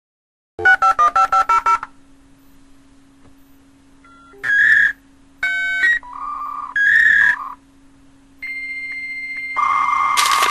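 Dial-up modem connecting: about eight quick touch-tone dialing beeps, then a few separate electronic tones, a steady high answer tone, and near the end the loud, harsh modem handshake screech.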